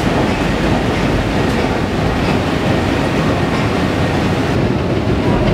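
Long subway escalator running under load, a loud steady mechanical rumble and clatter heard from a rider's position on the steps.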